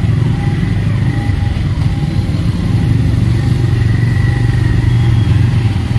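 Motorcycle engine running at idle in stopped traffic: a loud, steady low rumble that grows a little stronger in the second half.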